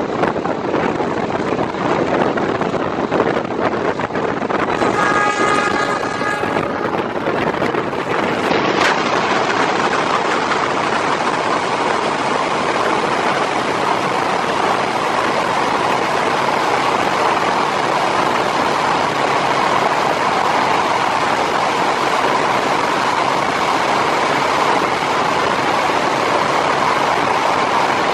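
Passenger train running along the line: a steady rush of wheel and wind noise. A brief pitched tone sounds about five seconds in, and there is a sharp click near nine seconds, after which the noise grows a little louder and steadier.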